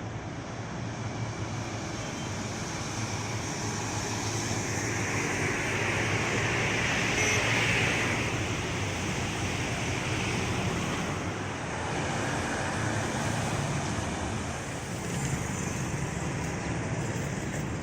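Steady road traffic and engine noise with a low hum, swelling as a vehicle passes about seven seconds in.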